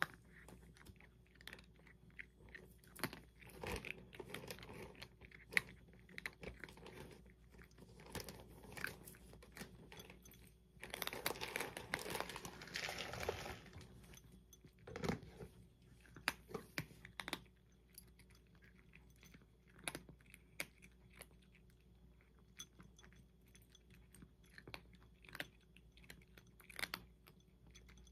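A tabby cat eating from a glass bowl: irregular chewing and crunching with small clicks. A louder, denser stretch of eating lasts a couple of seconds just before the middle, and the clicks thin out in the second half.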